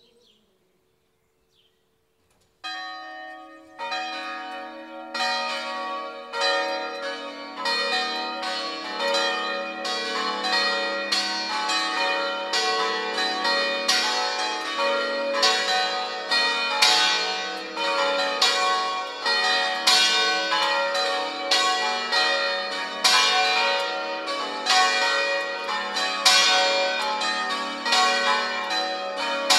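A peal of five swinging church bells rung 'a distesa' (in full swing). After a couple of seconds of near silence, the first bell starts striking, a second joins about a second later, and the others follow until the bells ring together in a dense, continuous, overlapping peal.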